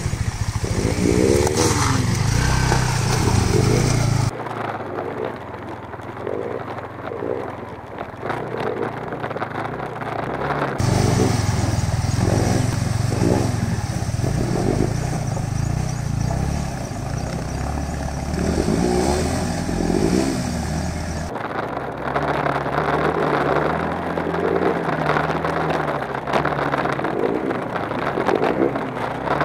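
Motorcycle engines running, heard in several joined clips whose sound changes abruptly about four, eleven and twenty-one seconds in.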